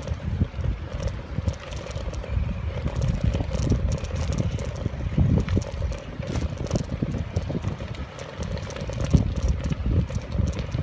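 Wind buffeting the microphone in a low, uneven rumble, with frequent small knocks and rattles throughout.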